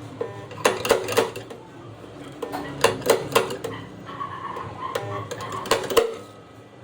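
Sharp metallic knocks and clicks from tools working on a car body panel during dent repair, coming in short irregular clusters of two or three.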